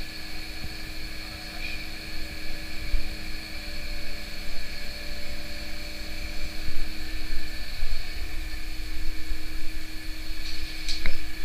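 Steady machinery drone with several held tones, over a gusty low rumble of wind on the microphone. One of the tones drops out about two-thirds of the way through, and a couple of sharp knocks come near the end.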